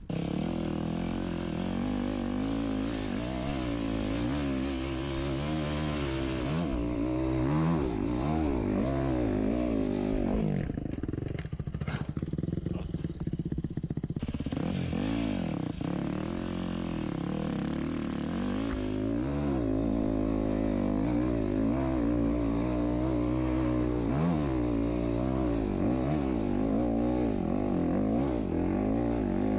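Yamaha enduro dirt bike engine, revving up and down again and again as the bike is ridden over rough ground. About a third of the way in it drops to a low, quieter note for a few seconds, then picks up and revs again.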